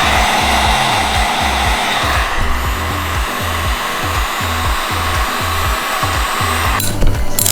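Heat gun blowing steadily to warm the glued-on heater pads on a snowmobile handlebar so they can be peeled off. The blowing cuts off abruptly about seven seconds in and is followed by a few sharp clicks.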